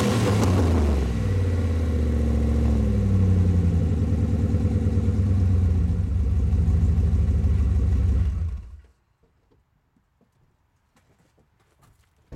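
1993 Jeep Grand Cherokee ZJ V8 running through a glasspack muffler, its exhaust ending ahead of the rear axle. The revs fall back from a blip and it settles into a steady, low running note, which stops about eight and a half seconds in.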